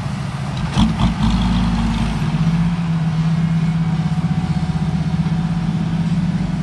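Dump truck's diesel engine running with a steady low throb as the truck pulls away over dirt, with two sharp knocks about a second in.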